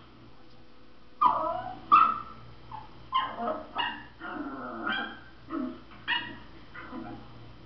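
A dog giving a string of about nine short, high yips and whines, each falling in pitch, starting about a second in; the first two are the loudest.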